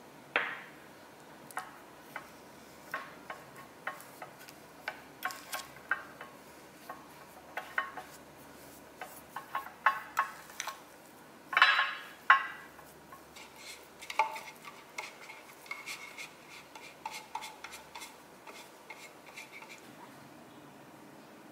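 Metal spoon clinking and scraping against a small glass bowl while peanut butter and sweetener are stirred into a thick paste. It is an irregular run of taps and short scrapes, with two louder scrapes about halfway through. It stops shortly before the end.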